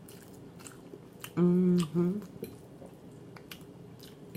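Mouth chewing sounds with scattered wet clicks, and about a second and a half in a loud, drawn-out burp at an even pitch lasting over half a second, followed by a short second burp.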